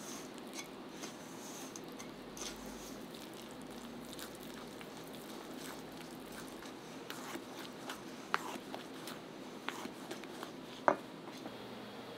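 A silicone spatula stirring a thick, wet egg-yolk, sugar and flour custard base in a stainless steel bowl: soft squishing and scraping, with a few sharp clicks, the loudest near the end.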